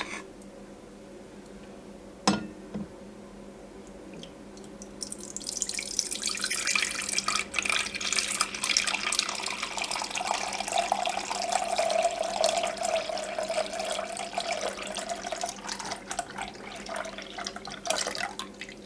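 A stream of liquid running into a vessel for about thirteen seconds, with a steady ringing tone through the middle, after a single click about two seconds in.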